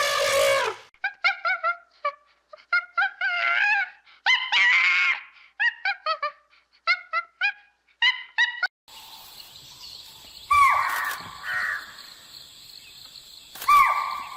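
Birds calling: many short, clipped calls in quick groups of two to four. After them come two louder, drawn-out calls that fall in pitch, over a steady background hiss.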